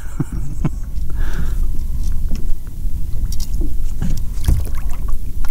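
Water sloshing against the side of a small boat, a steady low rumble with a scattering of light knocks and clicks.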